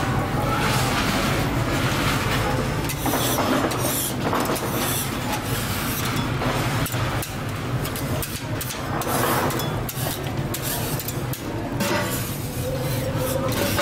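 Busy kitchen sound at a flat-top griddle: a steady low hum under a hiss, with scattered clicks and light clatter.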